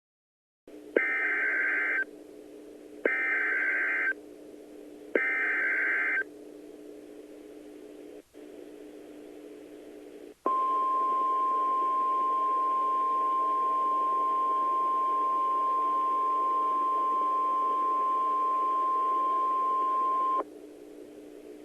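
Emergency Alert System tones from NOAA Weather Radio: three roughly one-second bursts of the SAME data header, about a second apart, then after a few seconds of faint radio hiss a steady 1050 Hz warning alarm tone held for about ten seconds that cuts off near the end. The tones announce a weather warning broadcast.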